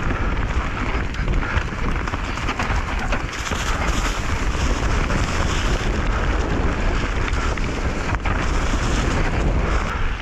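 Enduro mountain bike riding fast down a dirt trail: steady wind rush on the microphone over the tyres, with a constant clatter of small knocks and rattles from the bike.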